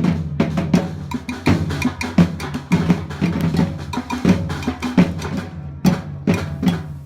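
Drum ensemble playing a busy groove of drum strikes, several hits a second over a steady low drum pitch.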